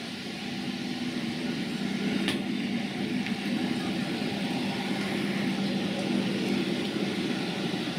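Narrowboat engine running steadily as the boat passes close by, growing a little louder as its stern draws near. A brief click about two seconds in.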